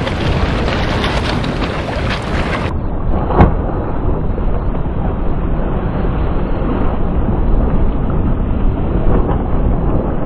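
Wind buffeting the microphone: a loud, steady rushing that turns duller about three seconds in, with a single sharp knock just after.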